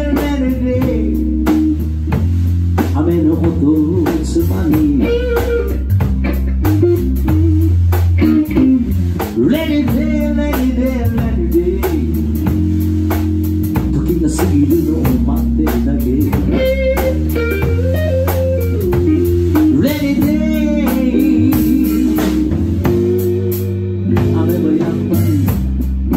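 Blues-rock trio playing live: electric guitar over bass guitar and a drum kit, with a steady beat.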